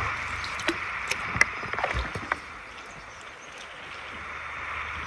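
Steady rush of river water, with a few sharp knocks in the first half.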